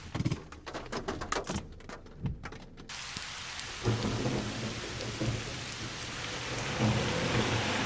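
Rain falling, with separate drops ticking sharply for the first three seconds, then a steadier downpour over a low rumble from about four seconds in.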